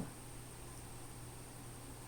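Faint steady hiss with a low hum and a thin high-pitched whine: room tone.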